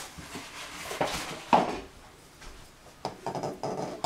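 Kitchen knocks and clinks as eggs are cracked and separated over a bowl: a sharp knock about a second and a half in, then a quick run of small clinks near the end.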